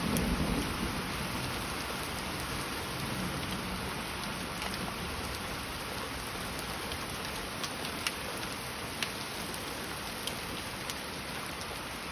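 Heavy rain falling steadily, with the last of a low thunder rumble dying away in the first second and a few sharp drips ticking out of the downpour later on.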